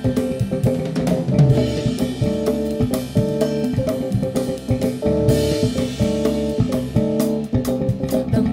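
A live soul-jazz band playing an instrumental passage: hand-played congas and a drum kit beating out a busy rhythm over a five-string electric bass line and keyboard chords.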